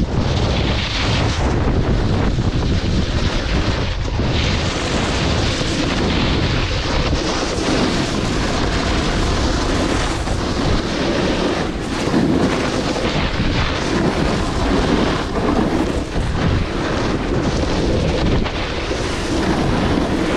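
Heavy wind buffeting on an action camera's microphone at ski-run speed, a dense rumbling roar with the hiss and scrape of snow under carving edges.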